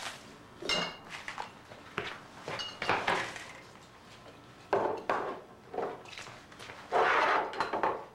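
Hurried household clatter of dishes, glass bottles and papers being cleared away, with sharp knocks, a couple of ringing glass clinks and a louder, longer clatter near the end.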